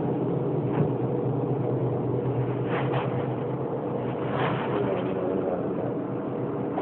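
A steady low mechanical drone holding several even tones, with a few faint brief sounds about three and four and a half seconds in.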